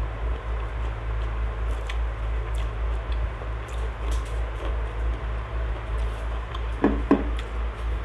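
Eating by hand: fingers picking and tearing at crispy fried catfish, with small clicks, soft crackles and chewing, and two louder crunchy sounds about seven seconds in. A steady low hum sits under it.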